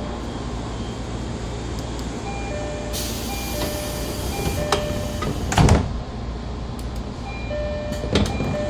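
Door chime of a JR 205 series 600 electric train: short electronic chime tones repeating every second or two. A hiss of air comes from the door gear about three seconds in, and the sliding door thumps shut loudly a little past halfway.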